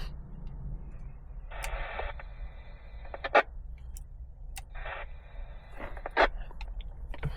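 Yaesu FTM-350 mobile radio's speaker giving two short bursts of narrow, tinny hiss as the radio is keyed and tested on air. Sharp clicks from pressing its controls are heard between them, the loudest about a third of the way in and again past the middle, over a steady low rumble.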